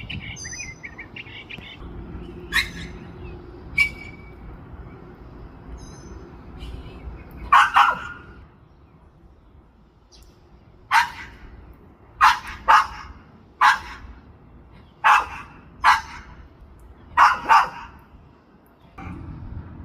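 Dog barking about a dozen times in irregular short bouts, several barks in quick pairs. Bird whistles and chirps are heard in the first couple of seconds.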